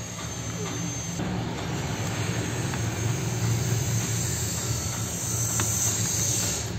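A small motor running steadily with a low hum, an even hiss and a thin high whine.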